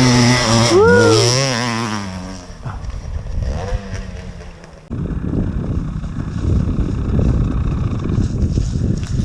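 Two-stroke enduro motorcycle engine revving up and down as the bike passes, fading away within the first couple of seconds. About five seconds in, a rough, low rumbling noise starts abruptly.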